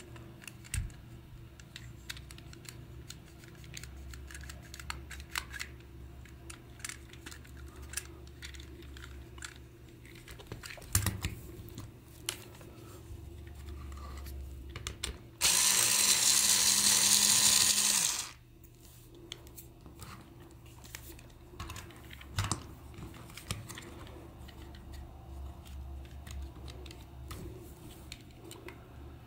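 Small cordless electric screwdriver running for about three seconds, working a screw out of the plastic toy housing. Around it, light clicks and knocks of plastic gears and housing parts being handled.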